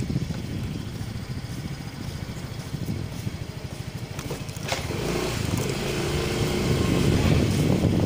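Wind buffeting a helmet headset microphone on a moving motorcycle, a fluttering low rumble with the engine running underneath. The rumble grows louder about five seconds in.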